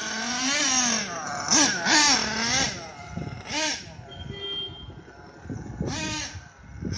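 HPI Savage 4.6 RC monster truck's small nitro engine revving in repeated bursts, its pitch rising and falling as the throttle is worked.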